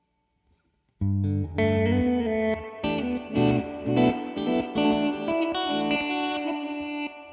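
Electric guitar, an American Vintage II Jazzmaster, played through the Old Blood Noise Endeavors BL-44 reverse pedal set to unison: notes and chords begin abruptly about a second in and run densely until they drop away near the end.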